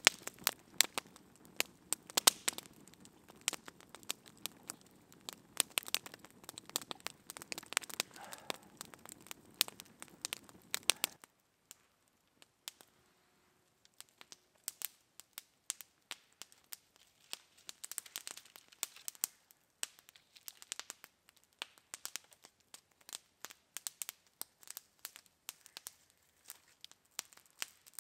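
Long log campfire crackling with many irregular sharp pops. The low hiss under the pops drops out about eleven seconds in, there is a short near-silent gap, and then the pops carry on more sparsely.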